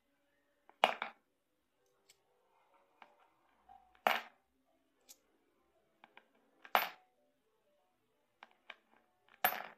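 Coins dropped one at a time through the slot of a triceratops coin bank (celengan), each landing inside with a sharp clink. There are four drops, about one every two to three seconds, with faint clicks of coins being handled in between.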